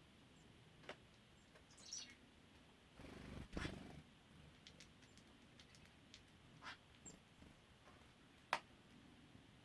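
Faint outdoor bird sounds: a couple of short, high chirps and scattered light taps and clicks, with a brief rustle about a third of the way in.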